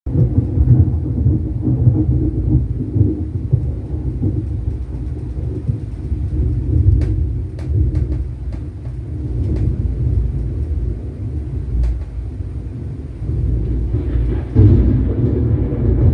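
Sony HT-S20R soundbar and subwoofer playing a sound-effects track of deep, continuous rumbling, like thunder, with most of its weight in the bass. It gets louder near the end.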